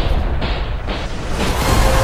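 Low booms of battle gunfire mixed with background music. A few sudden bangs come in the first second and a half, then sustained music notes take over near the end.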